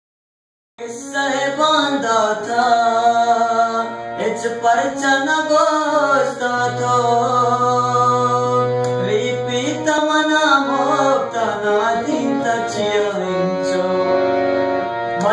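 Harmonium played as a song introduction: a melody on its reeds over held notes, with a long low note sustained in the middle, starting about a second in.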